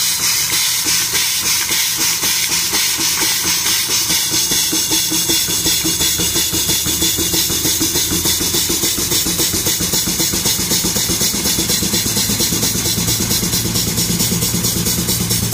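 A.D. Baker steam traction engine running with a fast, even exhaust chuff, over a steady hiss of steam escaping at the front of the engine.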